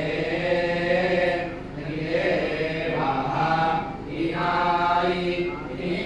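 A group of men chanting scripture in unison in a parayana recitation, in long phrases with brief pauses for breath between them.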